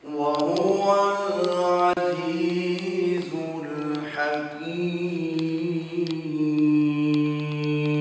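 A man chanting alone without accompaniment, drawing out long, wavering notes in phrases of a second or more with short breaks between them.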